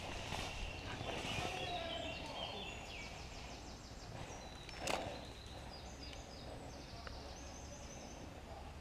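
Woodland birds singing in short, repeated high trills and chirps, with one sharp crack about five seconds in.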